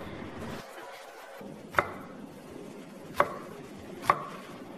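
Cleaver slicing crosswise through the base of a fresh bamboo shoot and striking a thick wooden chopping block: three sharp chops, the last two closer together.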